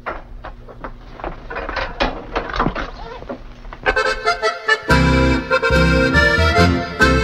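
Loud accordion music with a steady pulsing bass beat comes in about four seconds in. Before it come a few seconds of scattered quiet clicks and knocks.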